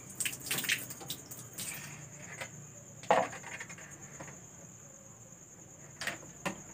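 Water scooped from a tub with a plastic dipper and poured over fishing rods: scattered splashes and light plastic knocks, the loudest about three seconds in and two more near the end. A steady high insect trill, like crickets, runs behind.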